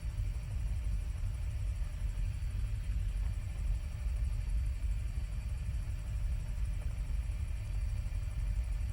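Helicopter in flight: a steady low rumble of engine and rotor.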